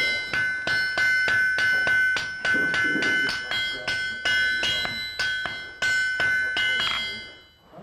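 Blacksmith's hand hammer striking an old iron tool on the anvil in a quick run of blows, several a second with brief pauses, the anvil ringing with a clear steady tone after each blow. The hammering stops about seven seconds in and the ring fades.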